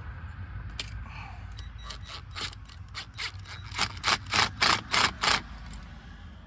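A hand tool works on the paint-clogged head of a Tapcon masonry screw in a series of short scraping clicks. The clicks are scattered at first, then quicken to about three a second near the end, over a low steady hum.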